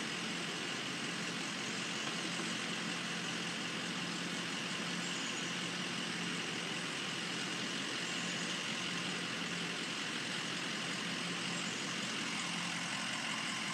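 Large emergency vehicle's engine idling steadily, a constant low hum with no changes.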